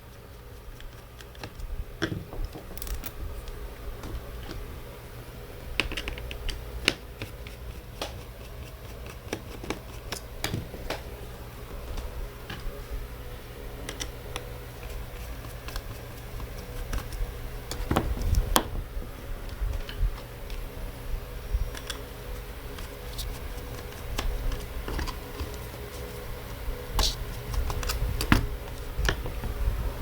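Irregular small clicks and taps of a laptop being handled and worked on by hand during a repair, over a low handling rumble; a few louder knocks come about a third of the way in and again near the end.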